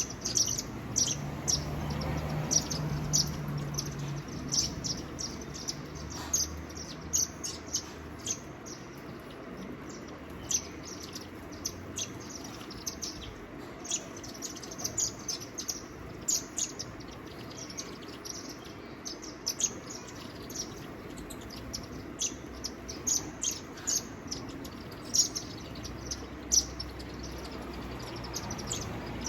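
Birds chirping: short, high chirps in quick succession, several a second, with a low hum underneath for the first few seconds.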